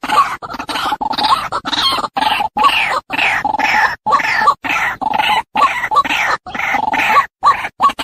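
White-breasted waterhen calls: a loud, rapid run of harsh repeated 'ruak-ruak' croaks, broken by many short gaps.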